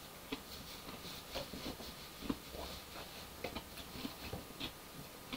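Faint, irregular soft clicks and smacks of someone chewing crunchy fried hot chicken.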